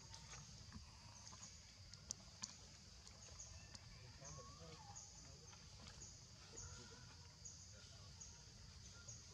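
Quiet outdoor ambience: a faint high chirring that pulses about twice a second over a low rumble, with two sharp clicks a little after two seconds in.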